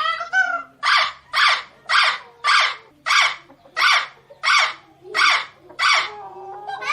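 Parrot calling: a short pitched call, then a run of about ten harsh squawks, roughly two a second, ending in a lower drawn-out call.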